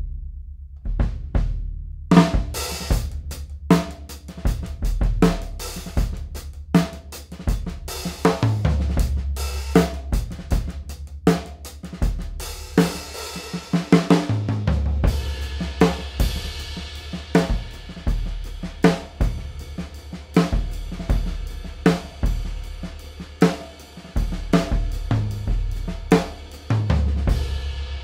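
Drum kit played with sticks: a 1938 Leedy Broadway snare with a calfskin batter head, a goatskin-headed bass drum, and cymbals with hi-hat. A few separate strokes open it, then a steady groove runs on, and it ends on a final hit left ringing near the end.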